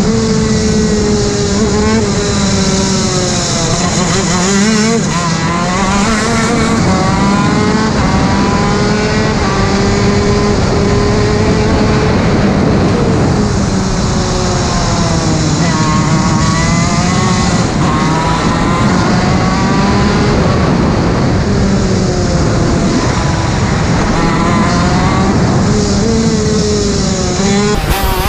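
TM K9C 125cc two-stroke shifter kart engine running hard at race pace, its revs climbing and falling again and again through the corners.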